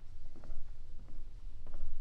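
Wind buffeting the microphone as a fluttering low rumble, with irregular footsteps on a trail a few times a second.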